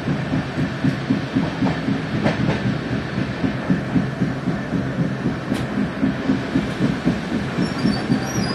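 A moving train heard from inside the carriage: a steady rumble with a quick, regular clatter of the wheels on the track, about three to four beats a second.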